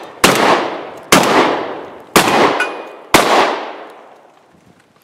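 Shotgun fired four times, about a second apart, each shot ringing out and trailing off in a long echo.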